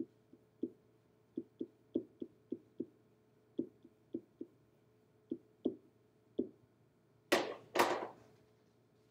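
Stylus tip tapping and knocking against an interactive whiteboard while a chemical structure is hand-written: about fifteen short, irregular taps, followed near the end by two louder, longer brushing sounds.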